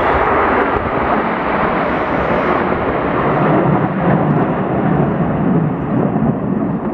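Formation of jet fighters flying over: a loud, steady jet-engine roar with a deep rumble.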